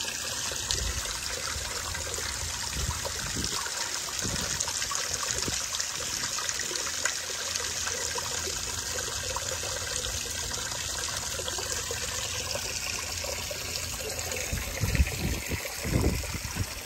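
Steady hiss of running or spraying water, with a few low thumps near the end.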